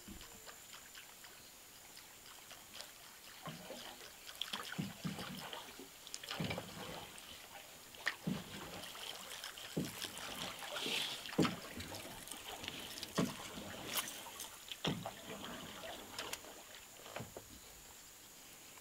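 A small boat being paddled: paddle strokes splash and knock against the hull, in a rough rhythm of about one stroke every second and a half to two seconds, with water trickling along the side.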